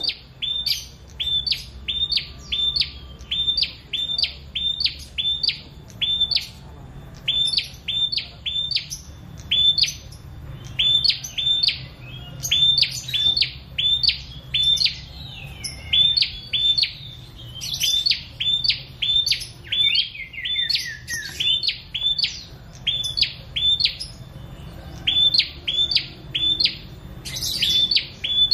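Caged prenjak singing: long runs of loud, sharp, repeated chirps, about three a second, broken by short pauses, with a brief falling trill about twenty seconds in.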